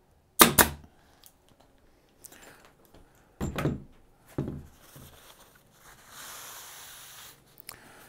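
A pneumatic pin nailer fires a pin with a single sharp crack about half a second in, driving it through a glued pine rail into plywood. Two duller knocks follow as tools are set down on the wooden bench. Near the end comes a couple of seconds of paper towel rubbing as excess glue is wiped off.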